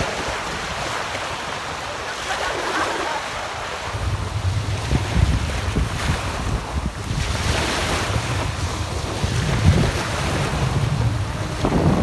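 Small sea waves breaking and washing up the sand at the shoreline, in surges. From about four seconds in, wind buffets the microphone with a low rumble.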